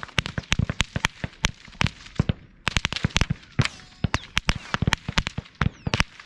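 Rapid, irregular AR-15 and AK-47 rifle fire heard downrange at the target end, from 400 yards away: sharp cracks of rounds arriving and striking, several a second, with a few short falling whines among them.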